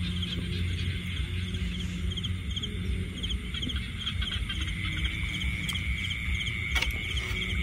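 Night chorus of calling frogs and insects: short chirps repeat about twice a second, a steady high trill comes in about five seconds in, and a couple of sharp taps sound near the end.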